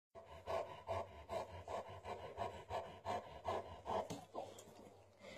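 Landseer dog panting rhythmically, about three breaths a second, fading out a little after four seconds in.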